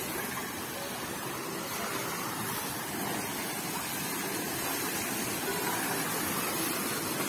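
Steady rush of water falling into a swimming pool, with faint voices of people in the background.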